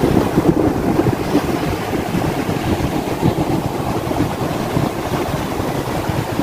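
Strong sea wind buffeting the microphone: a rough, gusty low rumble.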